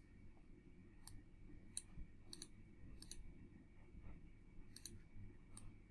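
Faint computer mouse clicks, about eight spaced irregularly, over near-silent room tone.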